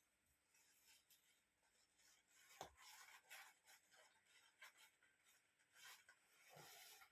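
Faint rustling and scraping of hands working soil while planting seed potatoes in a planting box, with a soft knock about a third of the way in and another near the end.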